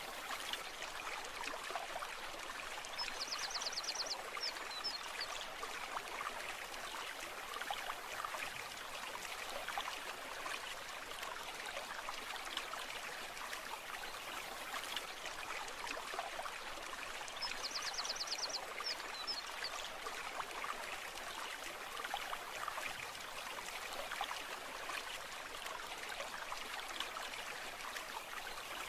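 A brook running over stones: a steady, even burble and trickle of flowing water. A brief, fast, high trill sounds twice, about three seconds in and again some fourteen seconds later.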